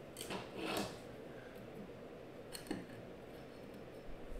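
Faint handling noises of a trading card in a clear plastic card holder: two soft swishes in the first second, then a single light click partway through.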